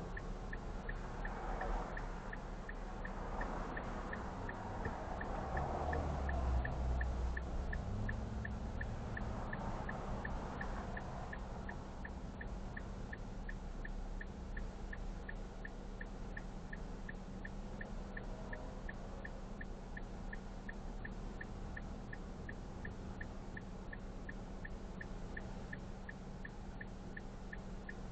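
A turn-signal indicator clicking at an even, quick rate in a truck cabin, over the steady low hum of the engine and road noise as the truck slows to a stop; the rumble swells briefly about six seconds in.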